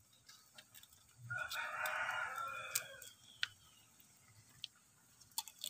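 A rooster crowing once, a call lasting about a second and a half, with a few light clicks scattered before and after it.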